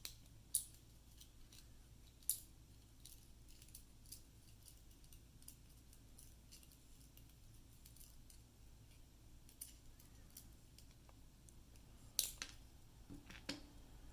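A few small, sharp metallic clicks and ticks, spread out over a low steady hum: tiny lock pins and springs being handled and dropped into a padlock's pin chambers. The loudest clicks come close together near the end.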